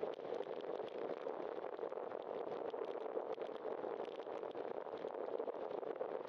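Steady rushing noise of a bicycle riding along a wet street, its tyres on rain-soaked pavement together with wind, with many small ticks scattered through it.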